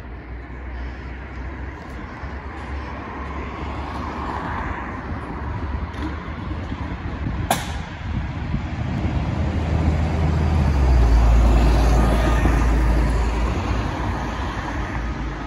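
Fire engine's diesel engine running in the station bay among road traffic noise, with one sharp click about halfway through. A passing car's low rumble builds up in the last few seconds.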